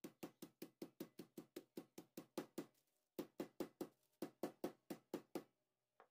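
A wooden rolling pin pounding a chicken thigh fillet through a thick plastic bag on a table, flattening it, in quick even knocks of about six a second. The knocks come in two runs with a short break near the middle.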